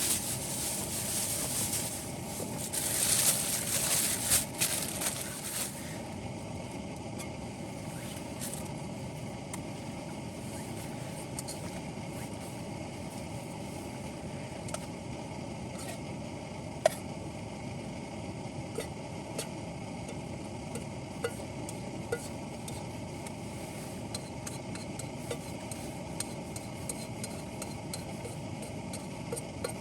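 Steady low rumble of strong wind. For the first six seconds there is louder rustling and crunching. After that come scattered small clicks and ticks, with one sharper click about seventeen seconds in.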